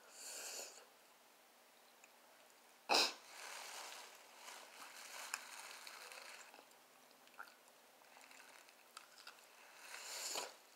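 Mouth sounds of eating a fried barbecue rib: one sharp bite about three seconds in, then softer chewing with small smacks and clicks. Breathy hissing sounds come at the start and again near the end.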